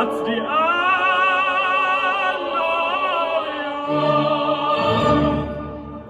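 Music: a singer holding long notes with a wide vibrato, in an operatic style, closing the song; it fades near the end.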